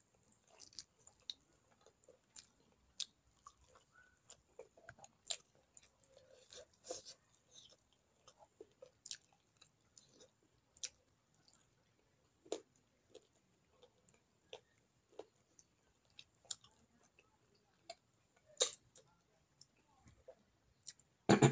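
Close-miked eating sounds of rice and fish curry eaten by hand: chewing and wet mouth smacks as scattered short clicks, with a louder burst just before the end.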